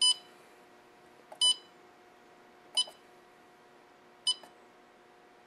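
Four short electronic beeps from the Evenheat Set-Pro kiln controller's keypad, one for each press of its up and down arrow keys, about one every second and a half. Each beep confirms a keypress as the rate value is stepped and set to 400 degrees per hour.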